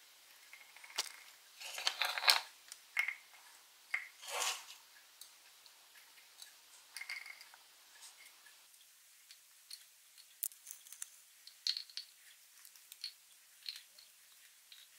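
Light scattered taps and clicks of sliced fruit being dropped into plastic popsicle molds and the molds being handled, with two louder brief rustles about two and four and a half seconds in.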